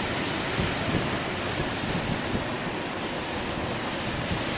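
Large surf waves breaking and crashing onto the beach: a steady, continuous rush of breaking water.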